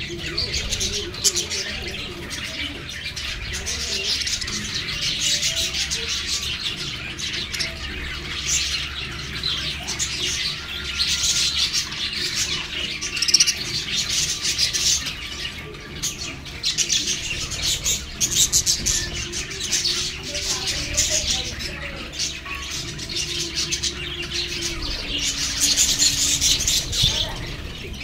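A flock of budgerigars chattering and chirping together in a continuous busy warble.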